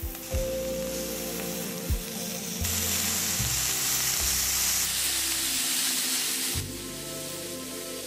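Lamb pieces searing in hot smen (clarified butter) in a pan, sizzling steadily; the sizzle grows louder for a couple of seconds in the middle.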